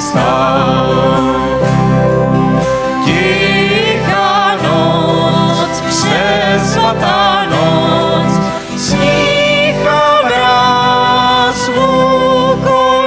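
Live band playing a song: a woman singing a melody with vibrato while she plays keyboard, backed by acoustic guitar and bass guitar.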